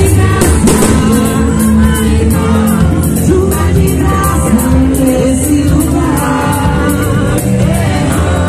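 Portuguese-language Christian worship song performed by a live band: singers over drums, bass, guitar, keyboard and percussion, with a steady beat.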